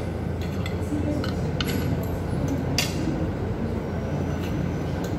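Forks clinking against ceramic plates several times over a steady low hum.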